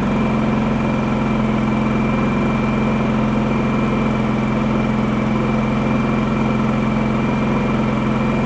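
A Champion 4500-watt dual-fuel inverter generator's single-cylinder four-stroke engine running steadily on propane in eco mode, with its covers off. It has just started without the choke.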